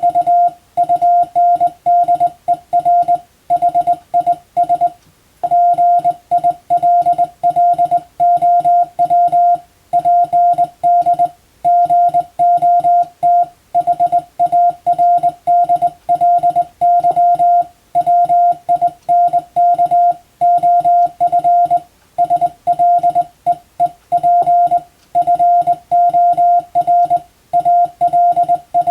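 Morse code sent as a single-pitch beep, quick dots and dashes run together into groups with short pauses between them, as in English-text telegram sending practice.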